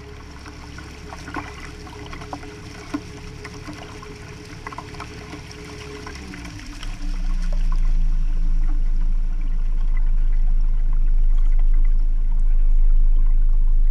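Motorboat underway, water splashing and rushing along the hull, with a steady engine note. About six seconds in, the engine note drops away as the boat slows, and a much louder steady low rumble takes over.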